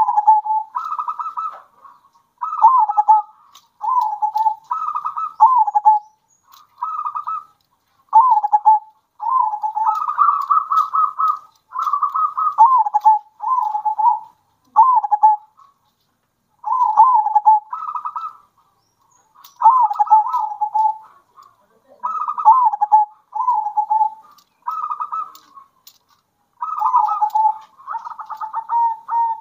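Local zebra doves (perkutut) singing their rhythmic cooing song in phrases of about one to two seconds, separated by short pauses. Each phrase is a quick dropping note followed by a fast run of pulsed coos.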